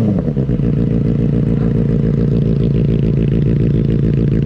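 Benelli 600i inline-four motorcycle engine: a throttle blip dies away in the first moment, then it idles steadily with an even, rapid exhaust pulse.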